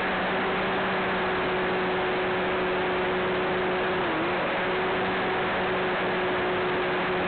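Cessna 182's piston engine and propeller droning steadily in cruise, heard inside the cabin as a constant hiss over a steady hum. The hum wavers briefly about four seconds in.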